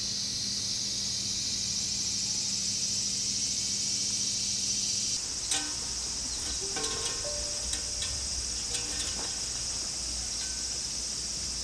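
Steady, high-pitched drone of a summer insect chorus. About five seconds in, scattered short tones and ticks join it.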